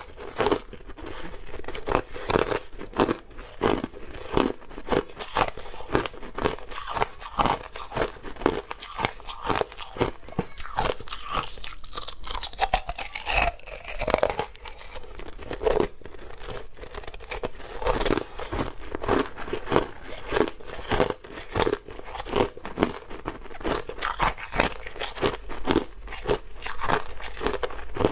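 Close-up crunching and chewing of hard crushed ice, a rapid, irregular series of sharp cracks as the pieces break between the teeth.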